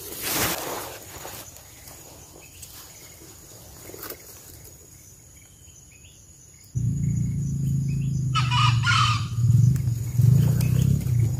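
A junglefowl crows once, briefly, about eight seconds in, over faint chirping of small birds. A little before it a loud, low, steady rumble starts suddenly and carries on, and there is a brief noise at the very start.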